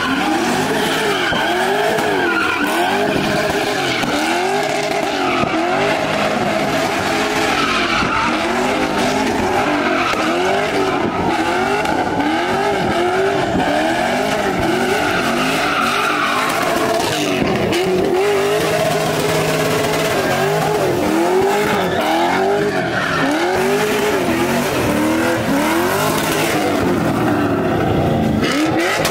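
Car engine revving up and down about once a second as a car spins donuts, its rear tyres spinning and squealing.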